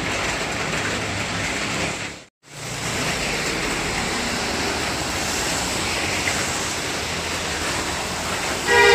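Steady hiss of heavy rain and tyres on a wet road, with passing traffic, dropping out for a moment about two seconds in. Near the end a bus horn starts sounding loudly.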